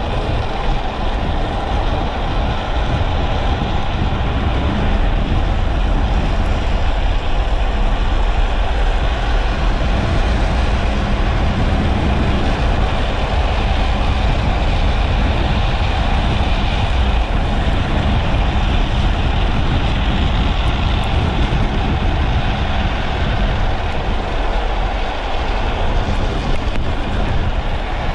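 Steady roar of wind on the microphone at around 50 km/h, mixed with the rumble of hard plastic trike wheels rolling fast on asphalt during a downhill run.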